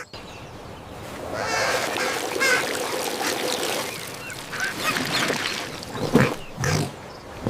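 A busy chorus of duck-like quacking and honking calls, many at once, swelling about a second in and thinning toward the end with a few louder calls.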